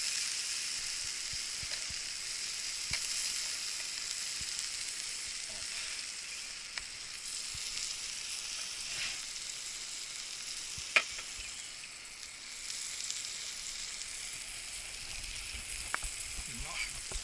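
Chicken thigh sizzling on a grill over a wood fire: a steady hiss, easing slightly, with scattered crackles and one sharp pop about eleven seconds in.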